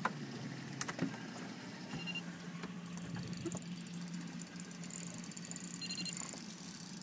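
Low, steady hum of a boat engine idling, with a few sharp knocks and clicks in the first second or so.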